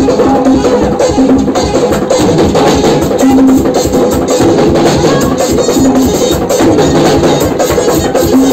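Live music driven by hand drums and percussion playing a dense, steady beat, with short held notes sounding over it.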